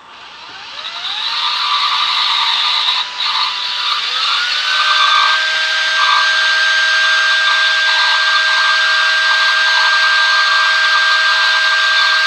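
A small bench grinder spins up, then about four seconds in a cordless drill starts with a rising whine, turning a TIG tungsten electrode against the grinding stone. Both motors then run with a steady whine over a grinding hiss.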